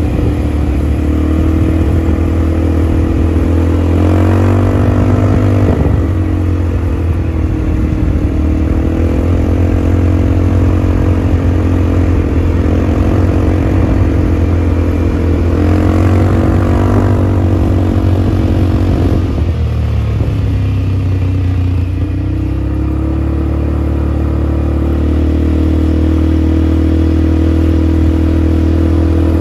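ATV engine running under way, its pitch rising as the throttle opens about four seconds in and again around sixteen seconds, then dropping back near twenty seconds before settling.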